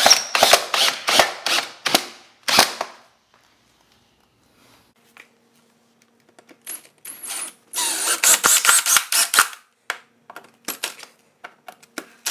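A power drill driving long screws into a wooden door jamb through a steel strike plate. Sharp clicks come about three a second for the first few seconds. After a short lull there are scattered clicks, then a dense clattering burst a little past the middle and more clicks near the end.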